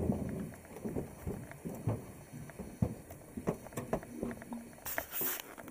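A drift boat being rowed toward the bank: scattered knocks of the oars and boat, with water sounds and a short rushing noise about five seconds in.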